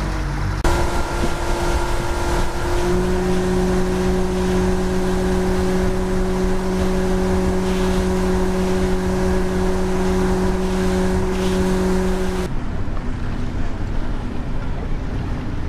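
Yamaha 115 outboard motor running steadily at speed, a droning engine tone over rushing wind and water spray; a deeper note joins the drone about three seconds in. About twelve seconds in it cuts to a softer wash of wind and water without the engine tone.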